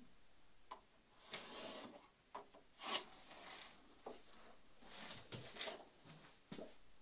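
Faint, scattered short scratches and light knocks, the loudest about three seconds in: a pencil marking a plywood garboard plank held against a boat's rib bands, with the plank rubbing on the wooden battens.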